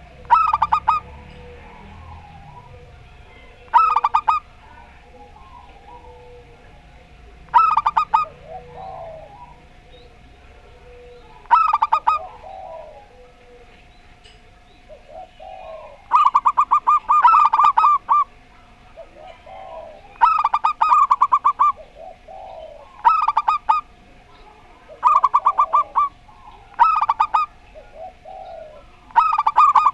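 Zebra doves (perkutut) cooing back and forth: bursts of quick stuttering coo notes about every four seconds, coming closer together about halfway through, with softer, lower coos between them. A faint steady tone runs underneath.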